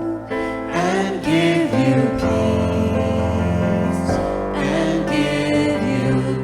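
Worship team singing a slow, sustained sung blessing over keyboard accompaniment.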